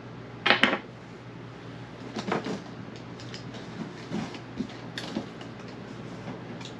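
Zip-tied bundle of wires being pulled and handled: a sharp clatter about half a second in, then scattered light clicks and rustles, over a steady low hum.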